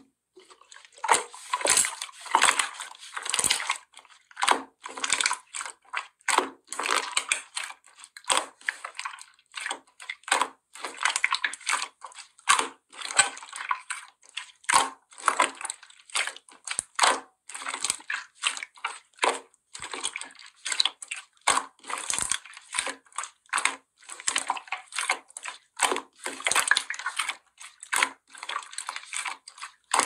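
Pink 'vinyl' (plastic-bag texture) slime being pressed, folded and squeezed by fingers: irregular crackly, wet squishes, a couple a second, with brief pauses between handfuls.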